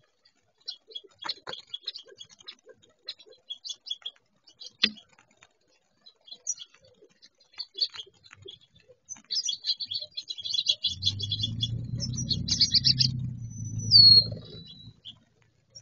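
A flock of California quail calling softly while foraging: many short chirps and tick notes, busiest from about nine seconds in. About fourteen seconds in there is one clear whistle that falls in pitch, the loudest sound. A low hum runs under the last few seconds.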